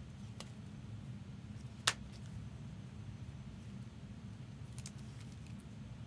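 Trading cards and clear plastic card sleeves being handled: a few soft clicks and rustles, with one sharper click about two seconds in, over a steady low hum.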